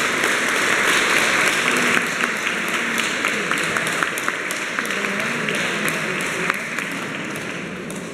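Audience applauding, the clapping loud at first and then thinning out and fading over the last few seconds.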